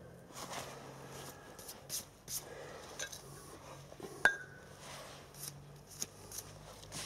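Steel Sentinel steam wagon engine parts being handled: scattered light knocks and clinks, with one sharp metallic clink about four seconds in that rings briefly.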